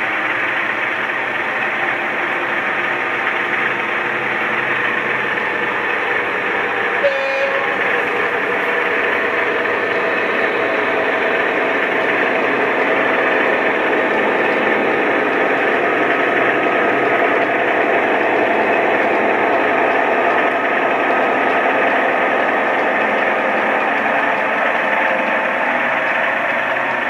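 DCC sound decoder in an OO gauge model Class 66 diesel locomotive, playing the engine sound through its small on-board speaker as the locomotive runs with a long train of stone wagons. The sound is steady and thin, with no deep bass. A short pitched tone sounds about seven seconds in.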